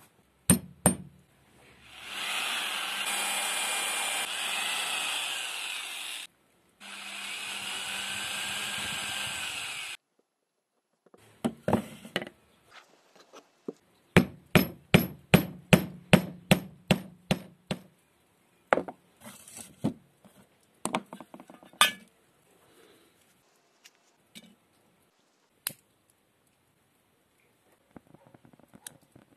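A wooden mallet striking the copper-capped handle of a chisel, driving it into a softwood board: a quick run of blows, about four a second, lasting some four seconds in the middle, with scattered knocks before and after. Earlier come two spells of steady mechanical noise, a few seconds each.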